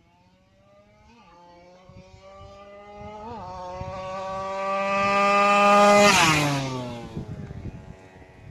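Underbone motorcycle engine being revved during tuning: the revs climb steadily and grow louder for about six seconds, then the throttle is let go and the revs fall away.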